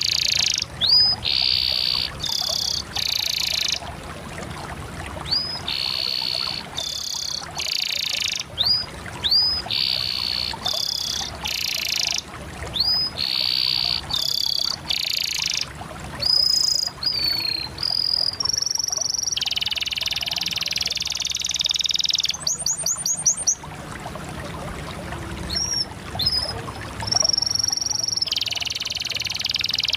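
Domestic canary singing a long, continuous song of rolled trills broken by short upslurred whistles, with a very fast, high chattering run about two-thirds of the way through.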